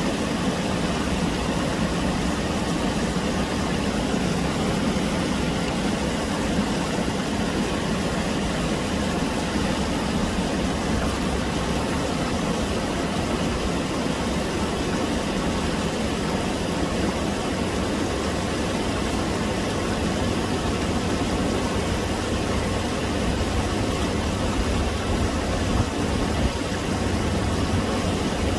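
Shallow creek water rushing and splashing over small rapids between rocks: a steady, unbroken rush.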